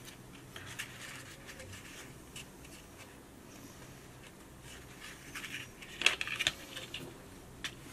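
Faint rustling, scraping and tapping of a cardstock paper-craft lid being handled, pressed and turned over, with a livelier cluster of paper scrapes and taps about five to six and a half seconds in.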